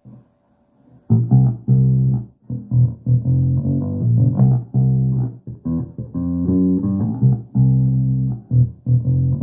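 Electric bass guitar played through a Joyo bass amp with its EQ set flat: a run of plucked notes starting about a second in, some cut short and some held.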